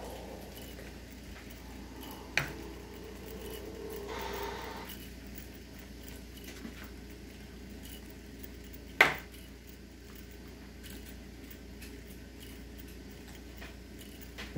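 Junghans mechanical clock movement ticking faintly and regularly. Two sharp metallic clacks stand out, one about two seconds in and a louder one about nine seconds in. There is a brief rustle around four seconds in.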